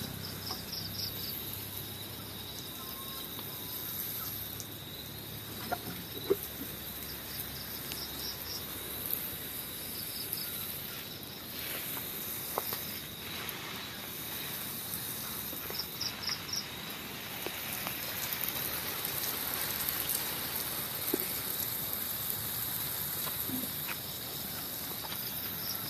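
Insects at dusk: a steady high-pitched insect drone, with short trains of rapid cricket chirps now and then. There are a few faint clicks.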